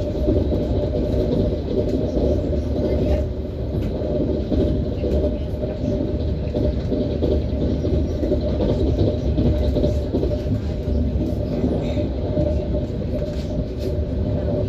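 ES1P Lastochka electric train running, a steady rumble of its wheels on the rails with a few faint knocks.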